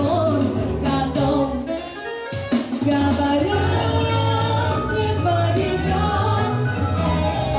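A woman singing into a hand-held microphone over backing music with a steady bass line. The music drops away briefly a little over two seconds in, then comes back.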